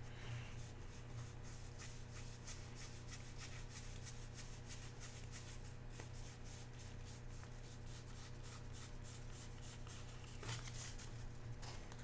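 Topps Star Wars trading cards being flipped and slid through by hand: a quick run of faint card-on-card flicks and rubs, over a steady low hum.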